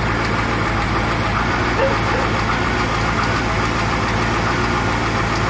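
Inboard sterndrive engine of a 1998 Wellcraft Eclipse boat idling steadily on its first run.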